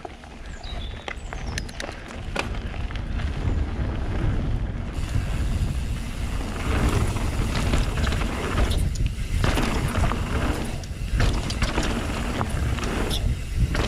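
Wind rumbling over the camera microphone as a mountain bike picks up speed downhill, getting louder over the first few seconds. Tyres run over loose dirt and the bike clicks and rattles over bumps.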